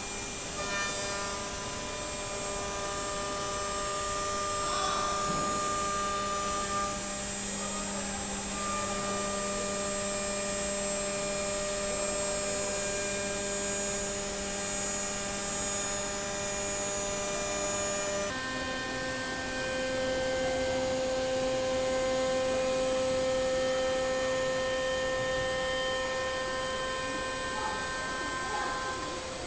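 5-axis CNC router spindle running steadily while machining, a whine of several steady tones. About eighteen seconds in, the tones jump abruptly to a different set of pitches.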